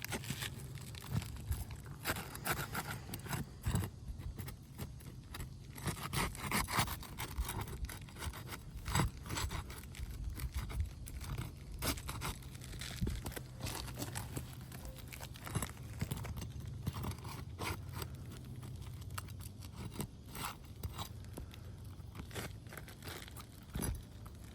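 Irregular scraping, crunching and clicking as roof shingles are bent back, pried up and worked under by hand.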